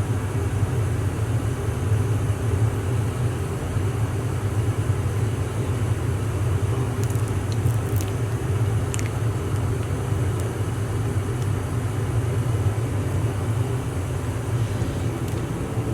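Steady low mechanical hum of running equipment, even throughout, with a few faint light ticks around seven to nine seconds in.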